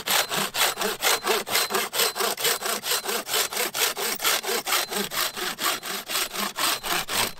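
Silky Gomboy 300 mm medium-tooth folding hand saw cutting through a birch branch with quick, even back-and-forth strokes, about four a second. It is a much faster cut than the cheap saw managed.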